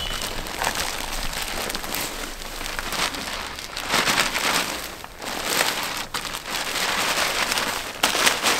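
Potting soil being shaken out of plastic bags and scattered thinly over a garden bed: a rustling, pattering noise that swells about four seconds in and again near the end.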